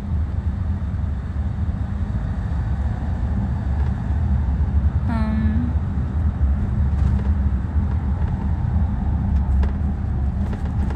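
Steady low rumble of a car's engine and road noise heard inside the cabin. A short pitched sound cuts in briefly about halfway through.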